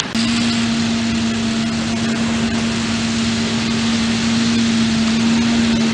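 Large John Deere farm tractor towing a beach-cleaning machine, its engine running at a steady speed with one even hum over a wash of mechanical noise; the sound starts abruptly just after the start.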